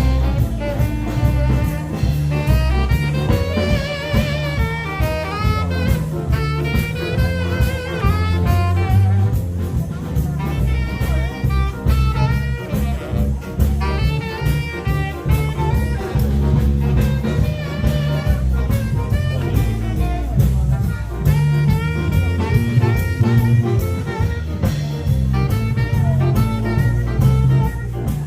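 Jazz music: a horn carries a wavering melody over a steady bass line and drums.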